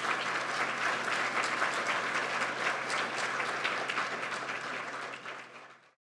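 Audience applauding at the end of a lecture, a dense patter of many hands clapping that fades and cuts off near the end.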